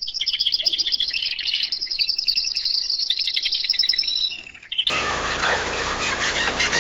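Small songbirds chirping in rapid, dense high trills. About five seconds in, it cuts abruptly to a different recording: a busier, noisier chorus of bird calls over a steady rushing background.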